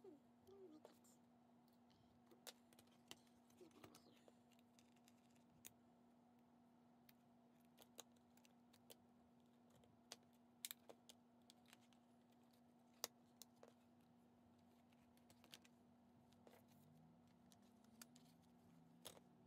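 Near silence, broken by scattered faint clicks and taps as paper and a metal binder clip are handled on a desk. A steady low hum runs underneath.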